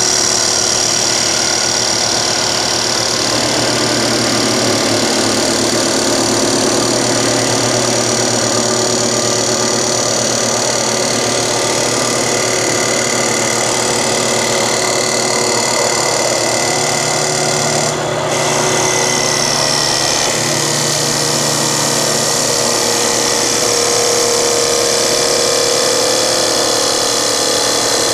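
Auto-Motion Motioncat TC650E CNC wood lathe turning a baseball bat blank: the spindle and cutting head run steadily while the cutter shaves the spinning wood into chips. The sound dips briefly about two-thirds of the way through.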